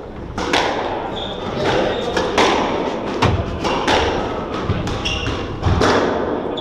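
Squash rally: the ball is struck by rackets and hits the court walls in a string of sharp, echoing smacks, about one every three-quarters of a second. Brief high squeaks of shoes on the wooden court floor come between some of the shots.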